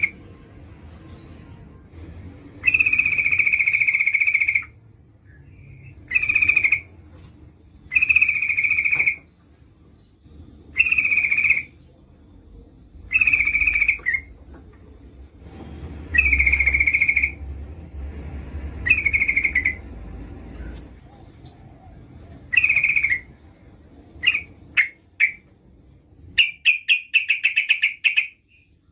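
Yellow-vented bulbul (trucuk) calling: a series of clear calls at one pitch, some short and some held for a second or two, breaking into a fast run of short chattering notes near the end. The calls are those of a female calling to draw a male.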